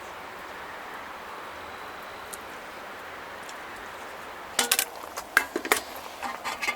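A steady hiss, then about two-thirds of the way in, a quick run of light clinks and taps of cutlery and dishes being handled.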